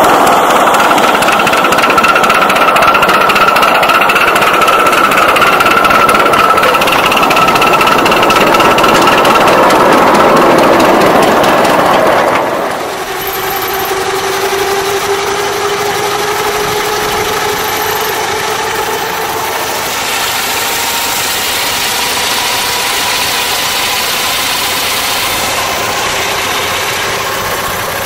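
Miniature live-steam engines running: first a loud steam hiss with a steady high tone. After a cut about twelve seconds in comes a quieter, steady run of a scale-model Burrell three-speed double-crank compound road locomotive moving along a paved road.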